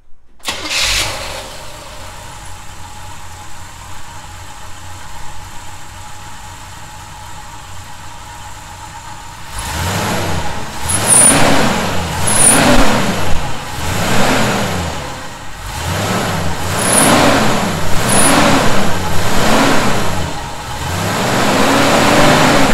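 1971 Chevy C10 pickup engine starting and catching about half a second in, idling steadily, then revved up and down repeatedly, about every second and a half, for the last dozen seconds. It runs without the whistle of its earlier vacuum leak.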